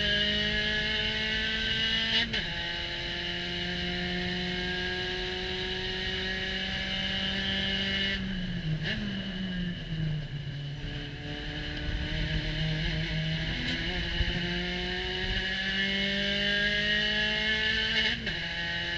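Spec Racer Ford Gen3's four-cylinder engine at race pace, heard from the open cockpit over wind noise. It climbs steadily in revs in third gear, lifts off and drops in pitch about eight seconds in, climbs again, then breaks sharply near the end, where it shifts up to fourth.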